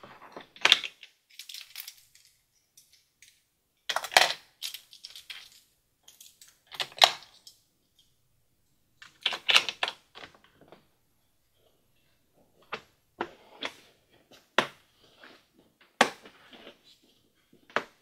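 Small plastic Thomas Minis toy trains clattering as they are handled and dropped into the hard plastic compartments of a Thomas Minis Collector's Play Wheel storage case, in a few irregular bursts of clicks. From about twelve seconds in come single sharp plastic clicks a second or so apart.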